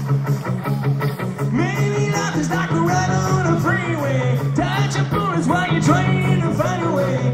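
Rock band playing live: electric guitars and drums, with a male lead vocal coming in about a second and a half in.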